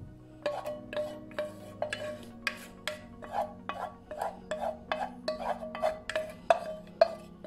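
A spoon scraping and tapping against the inside of a metal pot, about three strikes a second, each with a short ring, as the last of a thick chocolate filling is scraped out.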